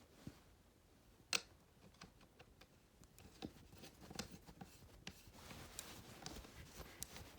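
Faint handling clicks and scrapes as the muzzle piece of a Smith & Wesson M&P 15-22 rifle is worked back onto the barrel, with one sharper click about a second and a half in.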